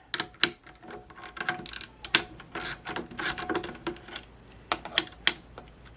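Socket ratchet clicking in short, irregular runs as the nuts holding an exercise-machine roller are loosened and backed off.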